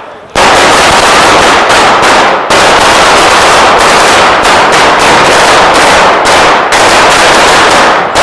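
A long string of firecrackers going off in rapid, dense crackling without let-up, after a brief gap at the very start.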